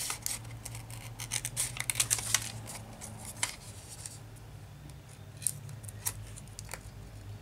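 Scissors snipping through laminating film and card stock as a laminated playing card is trimmed to its edge. A quick run of cuts comes in the first couple of seconds, then a few single snips.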